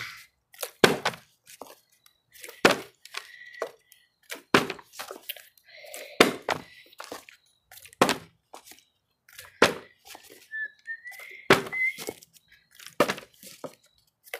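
A clear plastic bottle being flipped and landing on the floor again and again: a hollow thunk about every one and a half to two seconds, some with a quick second knock as it bounces.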